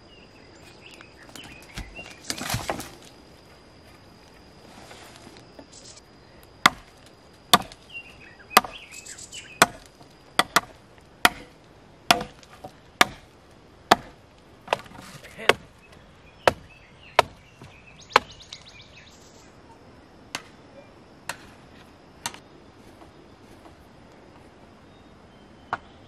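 A hand blade chopping into a dry tree branch: sharp wooden strikes about one a second, with a few fainter blows near the end. Before the chopping, about two seconds in, there is a brief rustle and clatter of dry branches.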